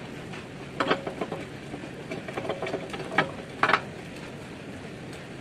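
A metal hand tool clinking and scraping against the steel of a JCB bucket, in several short knocks and scrapes with a slight ring: one about a second in and a cluster between two and four seconds in.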